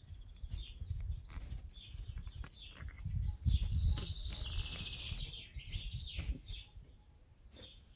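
Sick cat breathing heavily with a wheeze, short raspy breaths about once a second, over a low rumble.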